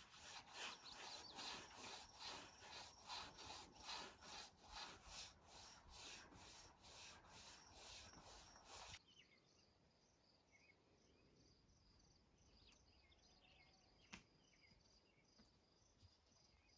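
Faint, rhythmic scrubbing of a paintbrush working wood stain into a porch beam, about two strokes a second. It stops abruptly about nine seconds in, leaving near silence with a single faint tick.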